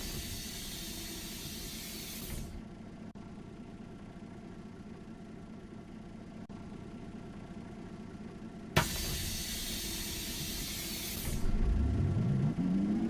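City bus standing at a stop: twice a sharp click followed by a couple of seconds of loud pneumatic air hiss, over a steady idle hum. Near the end the bus pulls away with a rising drive whine.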